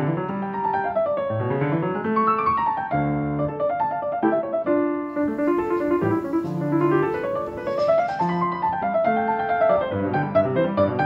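Background piano music, with quick rising and falling runs of notes.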